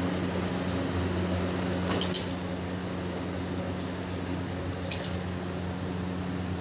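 Steady low hum of an appliance running in the room, with two brief crackling rustles of a cloth scarf being moved over the cat, about 2 s and 5 s in, the first the louder.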